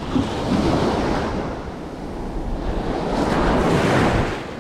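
Small surf waves breaking and washing up the sand, swelling twice, with wind on the microphone.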